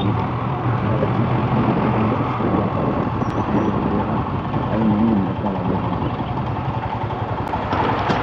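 A motorcycle engine running while riding, with steady road and wind noise and a slight rise and fall in engine pitch about five seconds in.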